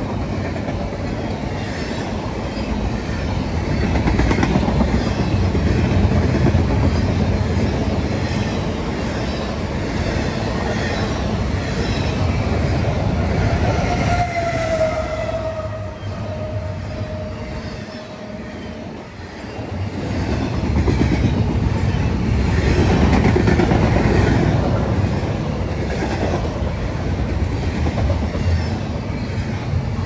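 Double-stack container freight train rolling past, with steady rumble and wheel clatter. Just before halfway a single drawn-out high tone sounds for several seconds, sliding slightly downward. About two-thirds through the rumble swells louder as a mid-train CSX diesel locomotive passes.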